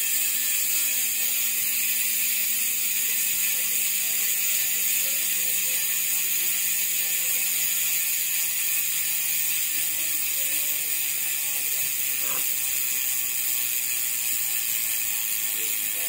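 ARC MT009 Boost rear hub freewheeling as the wheel spins, its 114-click ratchet pawls ticking so fast that they blend into a fine, bee-like buzz that is not very loud. Beneath it a low hum falls slowly in pitch.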